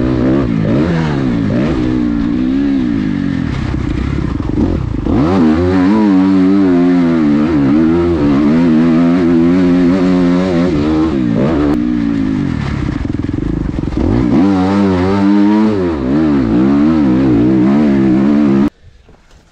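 Motocross bike engine, heard from on board, revving up and down again and again as the rider works the throttle around the track. The sound cuts off suddenly near the end.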